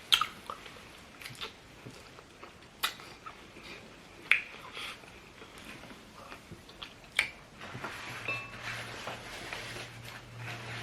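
Eating sounds of a meal of curry rice and grilled fish: chewing, with a few sharp clicks scattered through. A faint steady low hum comes in about eight seconds in.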